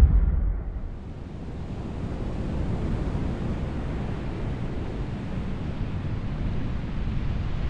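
A deep low boom fading out in the first second, then a steady rushing of ocean surf and wind.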